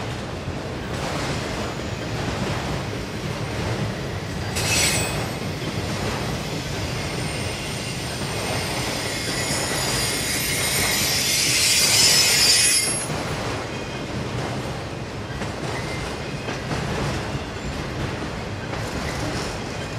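Freight train of enclosed auto rack cars rolling past, its steel wheels rumbling and clicking steadily over the rails. A high-pitched wheel squeal cuts in briefly about five seconds in, then a longer, louder squeal rises and holds for about four seconds from around nine seconds in.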